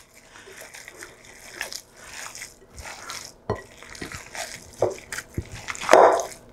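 Hands kneading and squeezing wet ground-meat meatloaf mixture in a glass bowl: irregular squelches and soft clicks, with the loudest squelch about six seconds in as a handful is lifted and squeezed.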